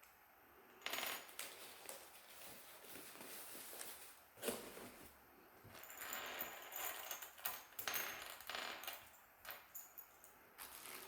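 Small metal mini screwdrivers and bits clinking and rattling as they are handled: faint light clicks, a few at first and a busier run in the second half.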